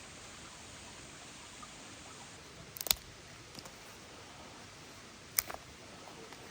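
Two sharp clicks or knocks, the first about three seconds in and the second about two and a half seconds later, each followed by a few fainter ticks, over a steady low hiss.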